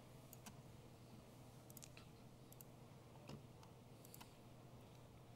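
Faint, scattered computer mouse clicks, several in quick pairs, over a quiet room with a low steady hum.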